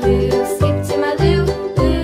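Cheerful children's background music with a steady bass beat.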